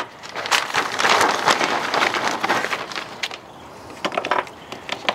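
Chunks of hickory wood knocking and clattering as they are set by hand into the steel charcoal hopper of a Char-Griller Gravity 980 on top of the charcoal. A busy run of knocks over the first three seconds, then a few scattered clicks.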